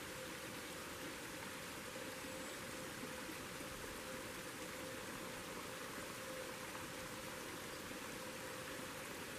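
Water poured from a metal camp mug into a Mountain House freeze-dried meal pouch, a faint steady trickle heard over a constant hiss with a faint steady tone.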